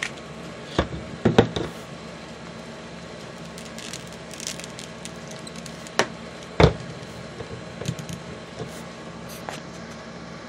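Handling noise as a cloth poncho is taken off a plastic action figure: scattered short rustles and light knocks, the sharpest about two-thirds of the way in, over a steady low background hum.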